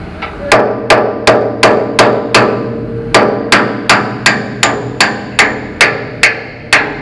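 Hammer blows on steel, about three a second with a brief pause partway, each one ringing: a new pin being driven into a loader bucket cylinder's spherical bushing, where it is binding.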